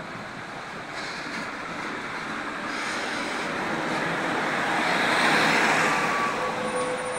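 Road traffic passing: a heavy truck with a long trailer rolls by, and the engine and tyre noise of the passing vehicles swells to a peak about five seconds in, then eases off.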